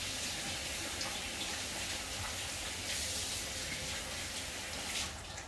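Breadcrumb-coated fish frying over low heat: a steady sizzle, briefly louder near the end.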